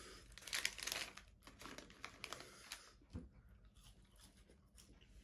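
Paper McDonald's fries bag being torn open and crumpled, crackling and crinkling for about three seconds, then going much quieter.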